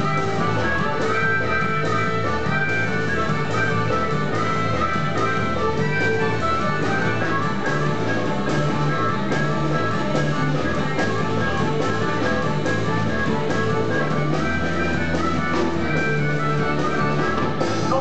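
A live blues band playing: electric bass, guitar, drum kit and harmonica in a steady groove.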